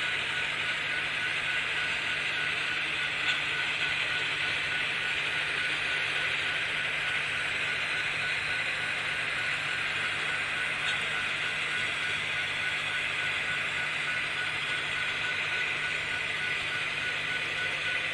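Model trains running on a layout: a steady whirring, rolling noise of motors and wheels on the track, with a thin steady whine and a couple of faint clicks.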